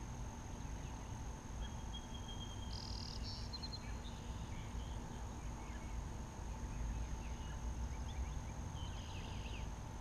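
Quiet pond-side outdoor ambience: a steady low rumble under a thin, steady high whine, with a few short chirps about two to three seconds in and again near the end.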